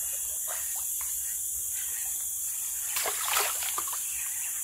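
Hooked fish, a baung catfish, splashing at the surface of the river as it is fought, a short burst of splashes about three seconds in.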